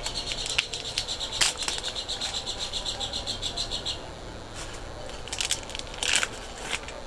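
Clear plastic wrapping around an ink bottle crinkling as it is handled, with a few sharp rustles, one about a second and a half in and two more near the end. For the first four seconds a high, rapid trill runs underneath, then stops.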